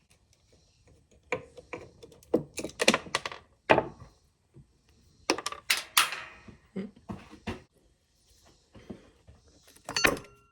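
Irregular clicks, knocks and clatter of hand tools and metal or plastic parts being handled. They come in clusters, the loudest near the middle and another just before the end.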